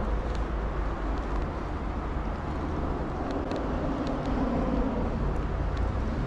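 Steady road traffic noise, with a vehicle passing a little louder about halfway through.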